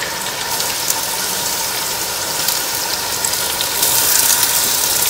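Chopped onions sizzling in hot oil in an iron kadhai as more are scraped off a plate into it; the sizzle grows louder a little under four seconds in. Light clicks of a steel spoon against the plate.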